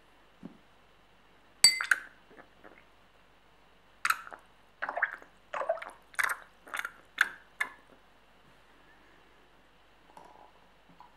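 A sharp clink with a brief ringing tone, then a run of about seven knocks roughly half a second apart.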